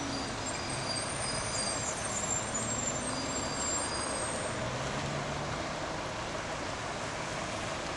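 A procession of NYPD patrol cars and SUVs driving past one after another, engines running and tyres hissing on wet pavement.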